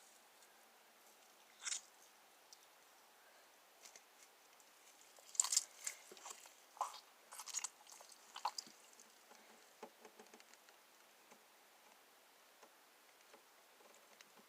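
Homemade slime being squeezed and pulled in the hands, giving short, faint squelching and crackling sounds: one about two seconds in, then a run of them in the middle.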